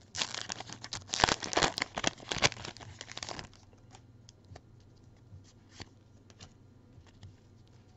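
Foil wrapper of a Pokémon TCG booster pack crinkling and tearing for about three and a half seconds, with sharp crackles, then light ticks and rubbing of trading cards being handled.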